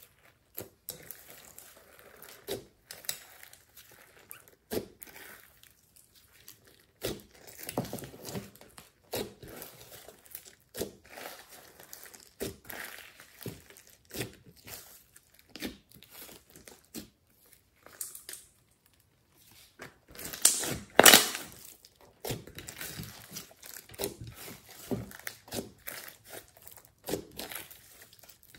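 Slime being kneaded, pressed and stretched by hand in a glass dish: irregular wet pops and crackles, with a louder cluster of them about twenty-one seconds in.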